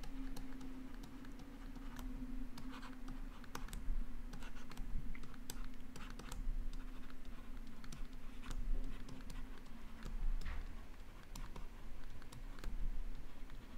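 Pen stylus tapping and scratching on a tablet screen during handwriting: irregular light clicks over a steady low hum.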